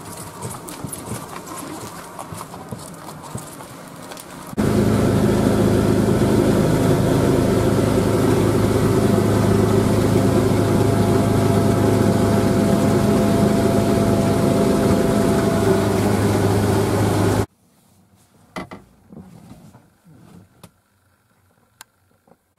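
A boat's outboard motor running steadily at speed, with water and spray rushing past the hull; it starts suddenly about four and a half seconds in and stops just as suddenly about five seconds from the end. Before it there is a fainter, busier outdoor sound, and after it near quiet with a few faint clicks.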